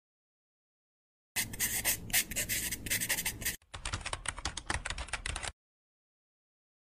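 Intro sound effects: a pen scratching across paper as if writing, starting about a second and a half in, then a quick run of keyboard typing clicks that stops about five and a half seconds in.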